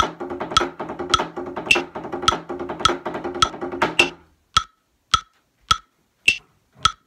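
Drumsticks on rubber practice pads playing a stock, buzz and tap exercise over a metronome clicking at 105 bpm. The playing stops about four seconds in, leaving only the metronome's even clicks.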